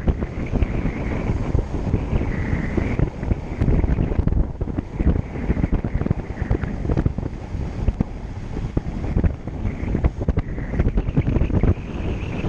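Wind buffeting a camera microphone on a road bicycle being ridden, a constant low rumbling rush.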